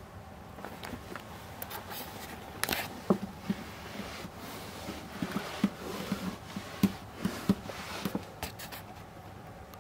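Handling noise: irregular soft knocks, scrapes and rustles close to the microphone, a dozen or so over several seconds, over a faint steady hum.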